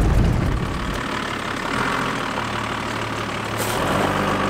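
Toyota 60 series Land Cruiser engine running at low revs as the truck crawls slowly over rough ground. About the first second is a heavy low rumble from inside the cab. Then the steady engine hum is heard from outside and grows a little louder near the end.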